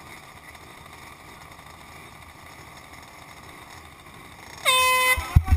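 Air horn blown once as the start signal for a peewee dirt-bike race, a single loud blast lasting about half a second, coming near the end after a steady low background. A few sudden low thumps follow it.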